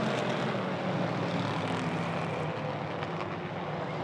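A pack of hobby stock race cars' engines running hard together on a green-flag restart, a steady, dense engine noise.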